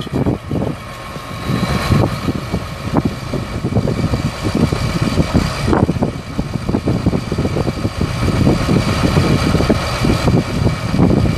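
John Deere 8245R tractor's six-cylinder diesel engine running steadily, with a steady whine above the engine note.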